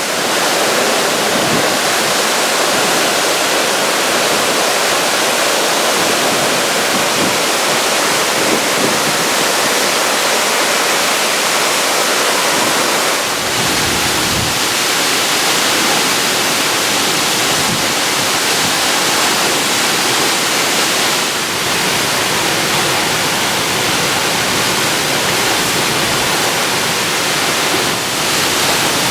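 Rushing white water of an alpine waterfall, a loud, steady rush.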